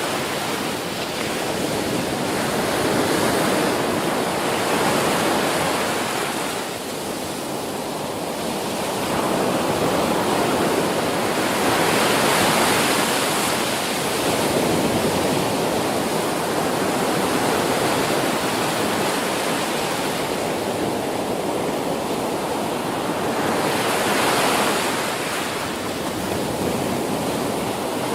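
Ocean waves breaking on a beach: a continuous rushing surf that swells louder and eases off every several seconds as sets come in.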